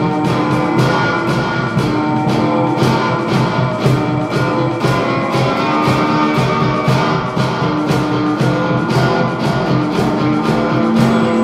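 Free-improvised rock music: electric guitar and bass holding notes over a steady beat of drum and percussion hits, about three a second.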